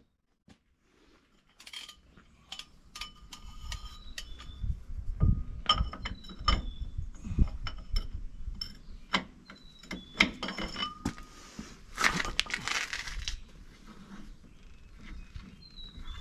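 Metallic clinking, tapping and short ringing pings of steel wheel-end parts being handled inside a heavy truck's wheel hub while the wheel bearing is checked for looseness. The clinks begin a second or two in, come irregularly, and there is a brief scraping rush about twelve seconds in.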